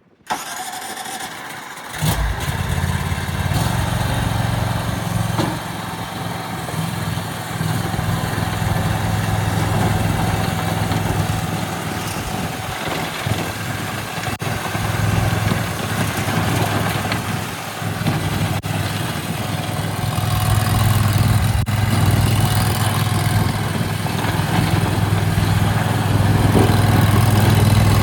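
The 23 hp air-cooled gasoline engine of an ATS-T460 stand-on mini skid steer being started on its electric starter, catching about two seconds in. It then runs steadily, its speed rising and easing off a few times, loudest near the end.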